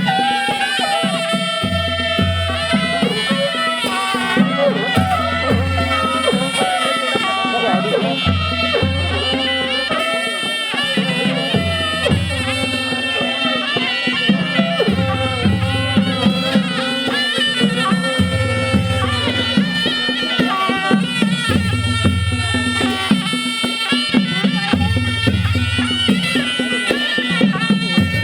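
Traditional folk-style music with a held, reedy wind melody over a regular low beat.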